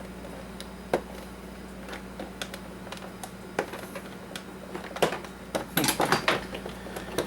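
Scattered light clicks and taps of hands and a tool working the plastic housing of an Oster coffee maker during teardown, growing busier near the end. A steady low hum runs underneath.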